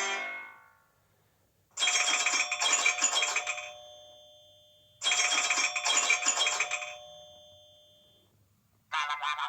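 iPhone classic ringtone: a bell-like chime of quick struck notes that rings away, played twice about three seconds apart. A different ringtone starts near the end.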